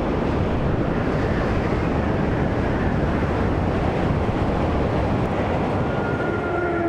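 Strong tornado wind in a steady, heavy roar, buffeting the microphone. Faint steady tones come in near the end.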